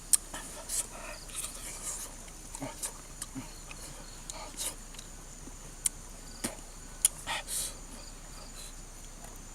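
Insects, crickets or similar, trilling steadily at a high pitch, with scattered sharp clicks and short knocks and rustles over them.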